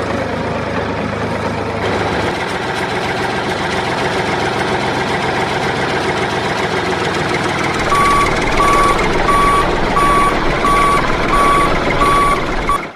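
A vehicle's engine running steadily. From about eight seconds in, a reversing alarm beeps eight times at an even pace, about one and a half beeps a second, over the engine.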